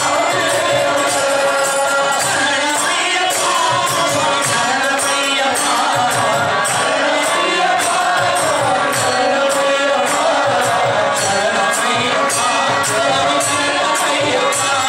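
Devotional bhajan sung by a lead singer and a chorus of men, with harmonium accompaniment and a steady percussion beat at about two strokes a second.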